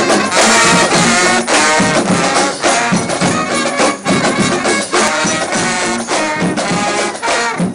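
Street marching band of brass and drums playing a lively tune with a steady beat.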